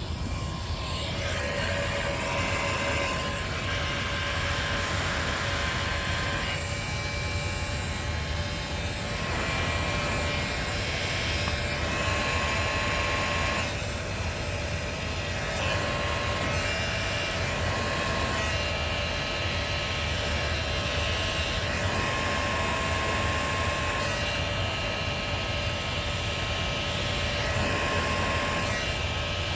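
Electric heat gun blowing steadily, with a faint motor whine and a higher hiss that comes and goes every few seconds. It is heating the shaved, dog-chewed plastic of a seat belt receiver to soften it.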